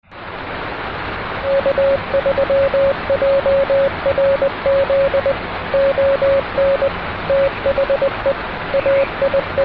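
Radio static hiss with a Morse code (CW) tone keyed over it in short and long beeps, starting about a second and a half in.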